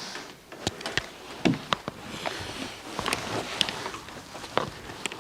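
Scattered light knocks, clicks and rustles of people moving and handling things in a small room, with no steady sound behind them.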